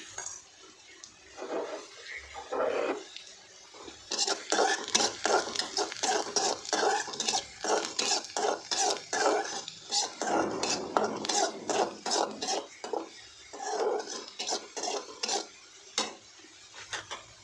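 A flat metal spatula scraping and clinking against a metal kadhai, stirring chopped onions frying in oil: a few soft strokes at first, then rapid, dense scraping from about four seconds in, easing off near the end.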